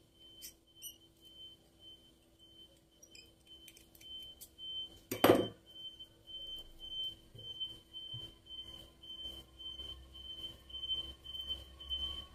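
Quiet handling of copper craft wire and faceted glass crystal beads as the wire is twisted and wrapped, with small clicks and rustles. There is one sharp knock about five seconds in, and a faint steady high-pitched tone throughout.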